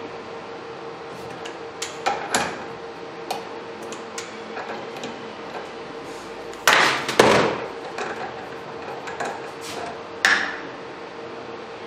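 Metal clicks and clatters from a wrench on a diesel injector's nozzle nut and from tools and injector parts handled on a steel workbench, with two loud clatters about seven seconds in and a sharp knock near the end. A steady hum runs underneath.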